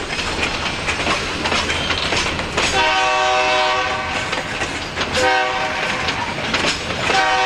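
Freight cars rolling past with their wheels clacking over the rail joints. Under this, the lead locomotives' horn sounds from down the line: a long blast about three seconds in, a short one right after, and another blast starting near the end.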